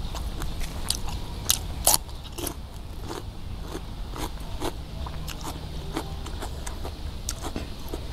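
Close-miked eating: crisp crunches and chewing of food, with two sharp, louder crunches about one and a half and two seconds in.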